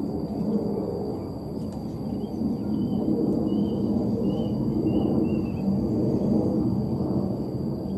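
Steady rainfall noise, with a bird calling a run of short notes in the middle and a faint steady high insect whine behind.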